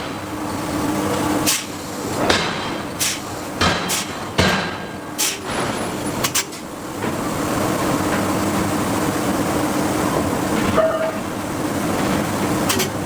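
Hydraulic forging hammer striking hot steel in heavy blows, roughly one every 0.7 s, over the steady hum of the machinery. The blows stop about halfway through, and the hum runs on.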